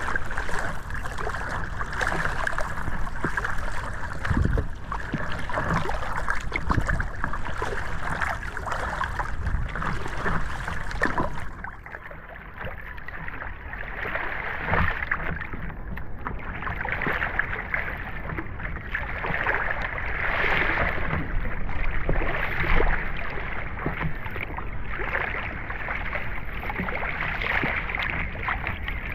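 Underwater sound: a constant rush of moving water with many sharp clicks scattered through it. About a third of the way in the sound changes abruptly, becoming duller, with soft swells.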